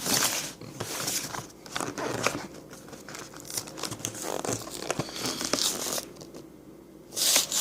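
Packaging crinkling and tearing as a cardboard card-game deck box is opened by hand, in irregular rustles and rips, with a loud rip near the end.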